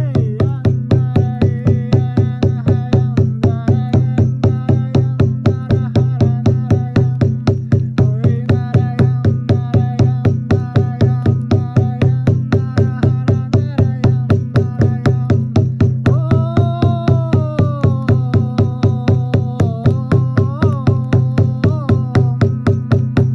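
Music: a fast, even drum-like pulse of about three to four beats a second over a steady low drone, with a melody whose notes bend and slide in pitch.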